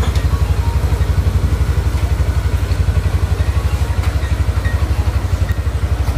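Motorcycle engine idling with a steady, rapid low pulse.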